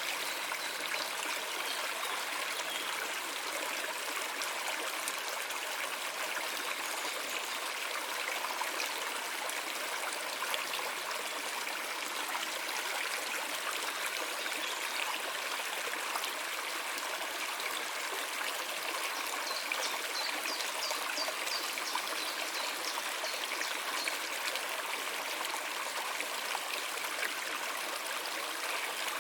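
Stream water flowing steadily, a constant trickling rush of running water.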